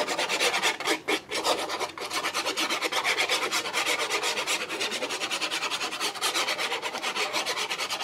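Applicator tip of a bottle of Art Glitter glue scrubbing rapidly back and forth over cardstock, spreading a generous layer of glue, several scratchy strokes a second.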